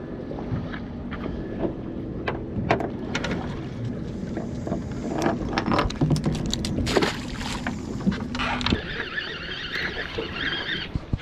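Water slapping against a small fishing boat's hull under a low steady hum, with scattered knocks and clicks and a splashy flurry about seven seconds in as a small blackfish is swung to the gunwale on the line and unhooked.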